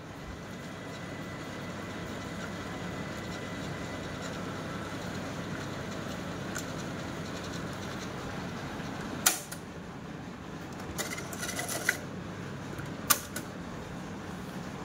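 Ahuja 4040-S cassette deck's tape transport whirring steadily as it winds the cassette, with sharp clicks of its piano-key transport buttons: one about nine seconds in, a short cluster around eleven to twelve seconds, and another about thirteen seconds in.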